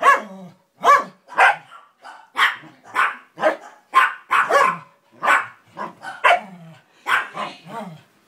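Dog barking repeatedly in play: a steady run of short, sharp barks, nearly two a second, a few trailing off into a low growl.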